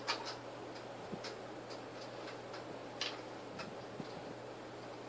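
Light, sharp metallic ticks, roughly three a second and uneven, from the metal arms and balls of a small battery-driven desk kinetic sculpture being handled and fitted together.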